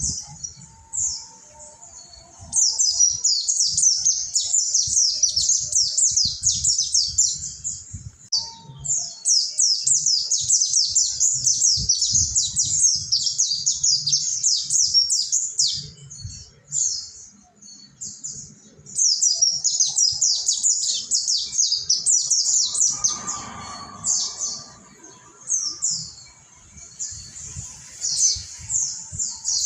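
Mountain white-eye (pleci monty) singing fast, high, twittering phrases several seconds long, broken by short pauses.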